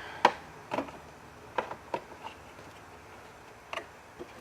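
A few sharp, irregular clicks and taps of hands handling the plastic fan and its connector inside a desktop PC case, the loudest just after the start.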